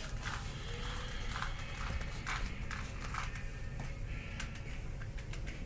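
Plastic Rubik's cube being twisted by hand: irregular clicks and clacks of its layers turning, several a second, over a low steady hum.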